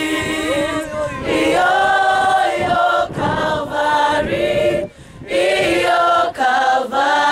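A school choir of boys and girls singing a gospel song unaccompanied, in held harmony, with a brief break about five seconds in.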